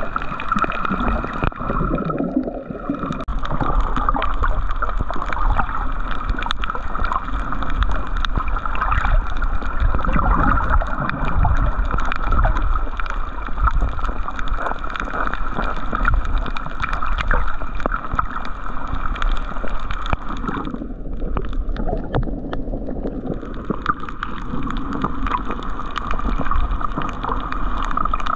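Underwater sound on a coral reef picked up through a dive camera: continuous hiss and gurgling water with fine crackling. The upper hiss drops out briefly twice.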